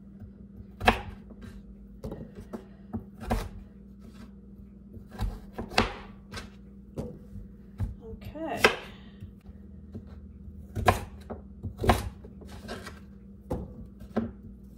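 Chef's knife cutting raw peeled sweet potato into chunks on a wooden cutting board: a series of sharp, uneven knocks as the blade goes through the dense flesh and strikes the board, about one a second and sometimes two in quick succession.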